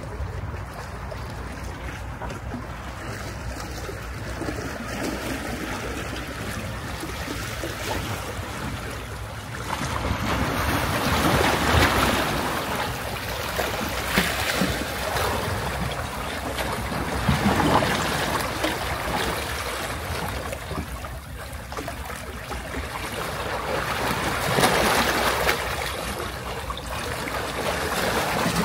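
Sea waves washing onto a beach, a steady hiss of surf that swells several times as waves break.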